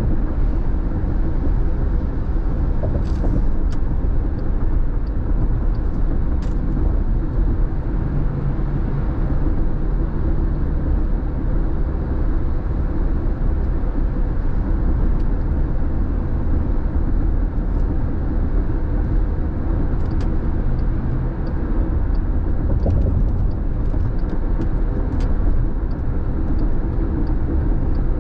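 Steady road noise heard inside a car cruising at freeway speed: a constant low rumble of tyres and engine, with a few faint ticks here and there.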